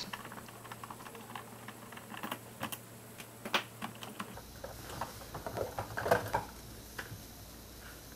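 Light plastic clicks and clacks from the main brush housing of a Roborock S6 robot vacuum being unclipped and lifted out of its plastic chassis: scattered single clicks at first, then a louder bunch of clacks a little past the middle.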